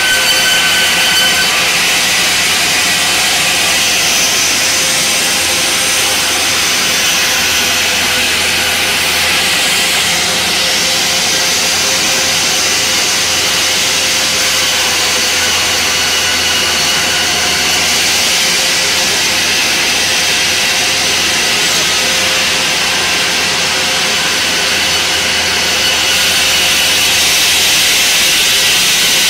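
Large vertical band saw in a sawmill running and cutting timber: a loud, steady hiss of the blade in the wood with a few constant whining tones, with no break.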